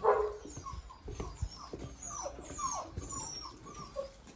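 Dalmatian puppies whining and yelping: a loud yelp right at the start, then a string of short calls, each falling in pitch, several a second.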